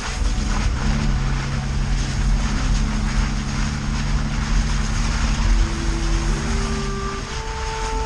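Engine of a Suzuki off-road vehicle running steadily at low speed in a low gear, with wind and tyre noise over it.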